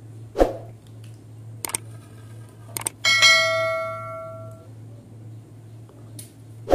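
Subscribe-button sound effect: two quick mouse-click pairs, then a single notification bell ding that rings out and fades over about a second and a half. A dull knock comes shortly before the clicks and another near the end.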